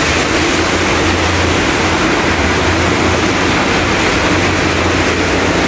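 Heavy rain pouring down steadily, a loud, even rush of downpour with no let-up.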